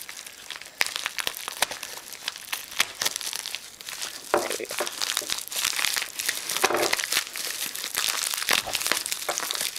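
Plastic bubble wrap and a padded mailer being pulled apart and unwrapped by hand, crinkling with dense, irregular crackles.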